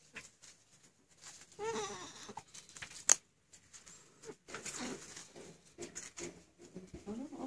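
A newborn baby gives a short whimpering cry about two seconds in, among soft rustling of a diaper and baby clothes. There is a single sharp click about three seconds in.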